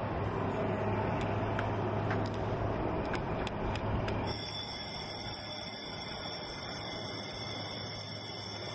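Outdoor ambience with a steady low hum and a few faint clicks. About four seconds in it cuts off suddenly and gives way to steady high tones, the start of background music.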